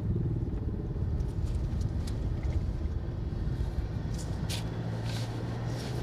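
Low road and engine rumble inside the cabin of a Mitsubishi Pajero driving at about 40 km/h, the tyre noise kept down by full sound-deadening. A steady low engine hum comes in about four seconds in as the car speeds up, with a few faint clicks.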